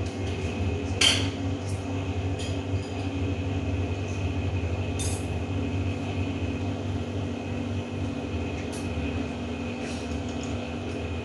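Cutlery clinking now and then against bowls and plates during a meal, over a steady mechanical hum. The loudest clink comes about a second in.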